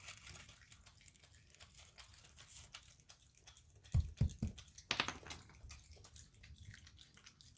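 Raccoon crunching and chewing almonds: a run of small irregular crackling clicks, with three heavy low thuds about four seconds in and a sharp click just after.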